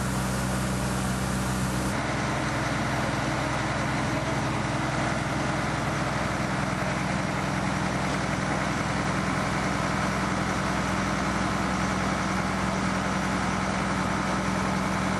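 Fire engine's engine running steadily at idle, a low steady hum under a broad hiss. The sound shifts abruptly about two seconds in, then holds steady.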